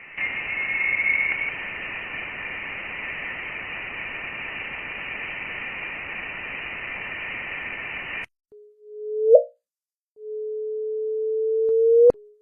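Sonified planetary space recording: a band of electronic hiss like radio static with faint steady tones in it, cutting off suddenly about eight seconds in. Then a low steady tone sounds twice, each ending in a quick upward swoop; the second is longer and grows louder, with a sharp click just before it ends.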